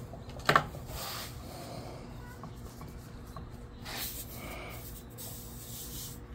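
Cloth rag rubbing and scuffing over a brazed copper pipe and brass fitting assembly, with one sharp knock about half a second in.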